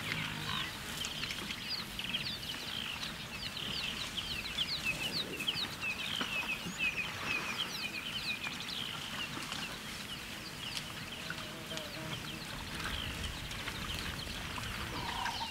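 A group of oxpeckers chattering, with many short, quick calls overlapping one another continuously.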